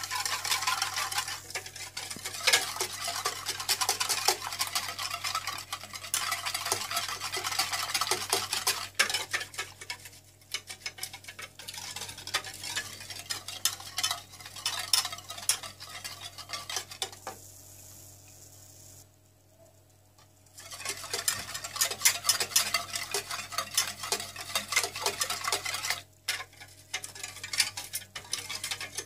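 Wire whisk beating cold milk, cocoa, sugar and cornstarch in a stainless steel saucepan, rapid scraping and clinking against the pan. It stops for a few seconds past the middle, then starts again.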